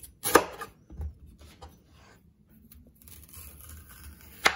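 Large kitchen knife cutting a banana on a wooden chopping board: a sharp knock of the blade on the board soon after the start, then a few lighter taps. A soft scraping stretch follows, with another sharp knock near the end.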